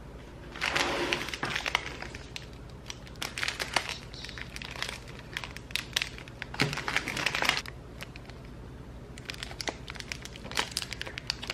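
Clear plastic wrapping crinkling in short irregular bursts as small wrapped packages are picked up and turned over in the hands, with a few light clicks and taps near the end.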